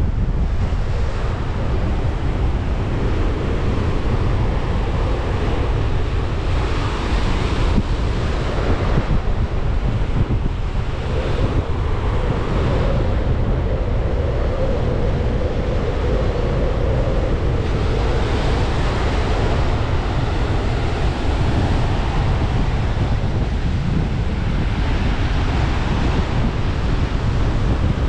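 Ocean surf washing onto a beach, its hiss swelling and fading several times as waves come in, under a steady low rumble of wind buffeting the microphone.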